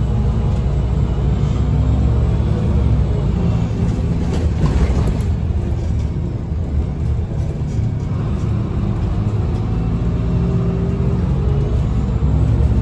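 Irisbus Agora Line city bus with a Voith automatic gearbox heard from inside the passenger cabin while driving: a steady diesel engine rumble with road noise. There is a short rush of noise about four seconds in, and the engine note rises again after the middle as the bus pulls on.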